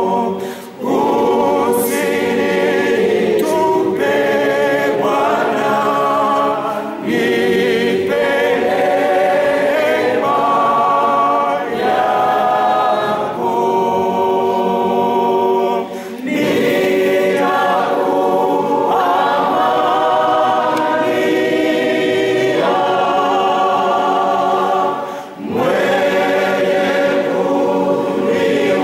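A congregation singing a hymn together unaccompanied, in long phrases with short pauses for breath between them.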